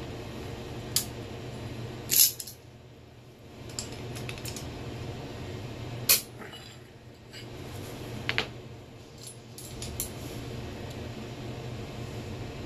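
Hand tools clinking against metal as vice grips and a box-end wrench work on a turbocharger's compressor wheel nut: a handful of sharp, separate clinks, the loudest about two and six seconds in, over a steady low hum.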